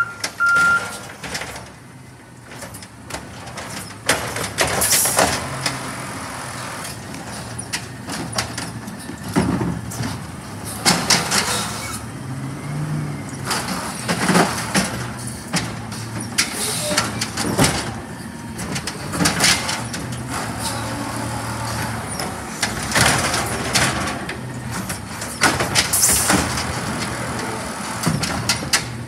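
Autocar ACX natural-gas refuse truck with an automated side-loading arm emptying curbside recycling carts: the engine runs steadily, rising briefly in revs as the arm works, under repeated bangs and sharp air hisses. A reversing alarm beeps in the first second.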